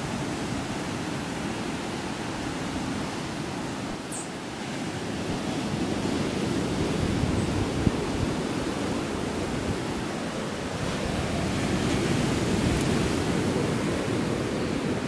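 Surf washing onto a sandy beach: a steady rush of waves that swells and eases twice.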